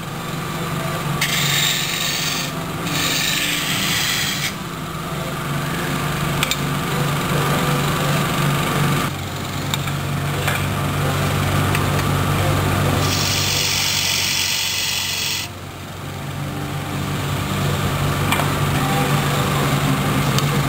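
Wood lathe running with a steady hum while a hand-held turning tool cuts the large spinning wooden pedestal blank, in passes of scraping noise: two short ones a second or two in and a longer one past the middle.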